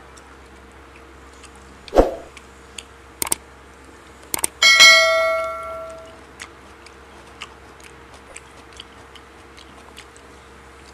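YouTube subscribe-button sound effect: a pair of mouse clicks followed by a notification bell ding that rings and fades over about a second and a half. A sharp thump comes about two seconds in, and faint crunchy ticks of chewing raw vegetables follow the ding.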